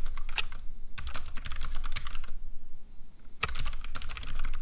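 Typing on a computer keyboard: quick runs of keystroke clicks, broken by a pause of about a second midway.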